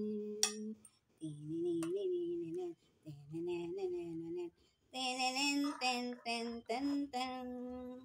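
A woman singing a Christmas song to herself, unaccompanied, in held notes with short breaks between phrases.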